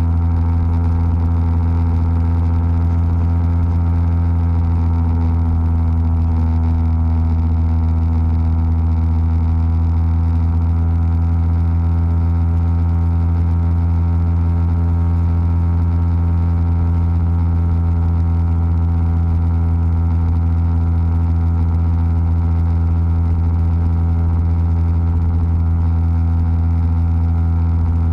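Motorcycle engine holding a constant cruising speed, a steady low drone with no change in pitch.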